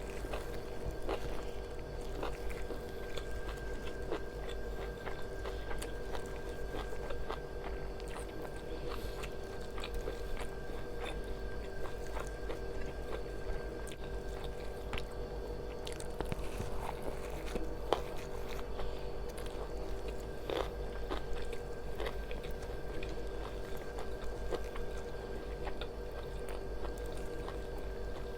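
Someone biting and chewing fried masala chicken, with small crunching clicks scattered throughout over a steady background hum.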